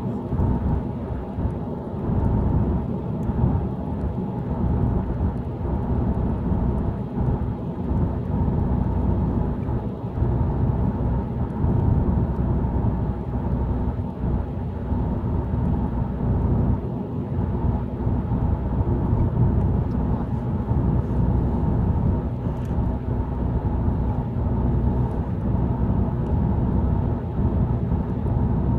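Steady low rumble of a car heard from inside the cabin, rising and falling a little in loudness without a break.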